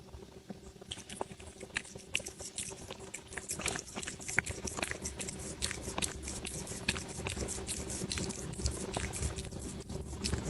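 A pet chewing crunchy food: dense, irregular crisp crunches, starting about a second in.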